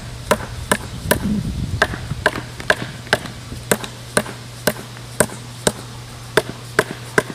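A plastic rink board bracket struck again and again, about two blows a second, driving its ground spikes down into the soil.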